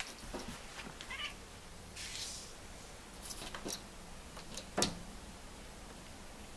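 House cat making short meows and chirps, reacting to birds it can see; the loudest call comes about five seconds in.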